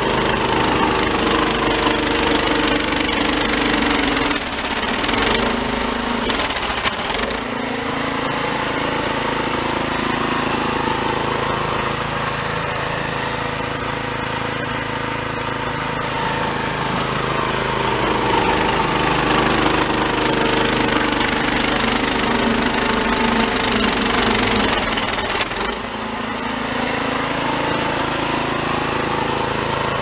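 Toro Snowmaster 724 QXE snowblower's single-cylinder engine running under load as it chews through heavy, melted-and-refrozen snow. The engine pitch sags and recovers a few seconds in and again near the end as it bites into the snow.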